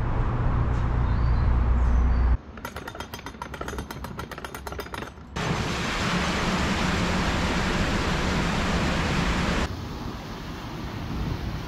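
Narrowboat diesel engine running steadily. After an abrupt cut it gives way to a quick run of evenly spaced clicks, then a loud steady rushing noise, which drops to a quieter hiss near the end.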